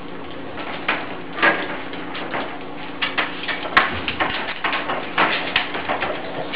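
Irregular metal rattling and clicking of a cage door and its lock as a dog works at the lock with its mouth, getting busier after about three seconds, over a steady low hum.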